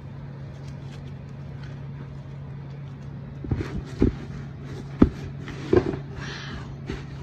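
Pink slime being kneaded and pressed into a tub of crunchy 'winter snow' add-in, giving sharp crackles and pops from about three and a half seconds in. A steady low hum sits underneath.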